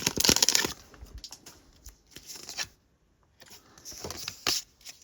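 Foil wrapper of a Pokémon TCG booster pack crinkling and tearing open in the first second, then a few faint rustles and taps as the pack and cards are handled.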